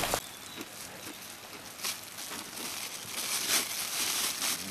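Thin plastic bag rustling and crinkling in several short bursts as hands rummage in it, the louder bursts in the second half.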